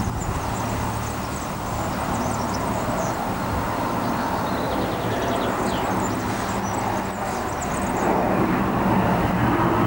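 Antonov An-158 regional jet's two turbofan engines heard from the ground as a steady noise during a low flying-display pass, growing a little louder near the end as the jet comes nearer.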